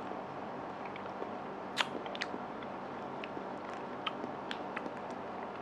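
Small crackles and clicks of a small MRE food packet being handled and worked open by hand, scattered and irregular, the sharpest about two seconds in, over a steady faint hiss.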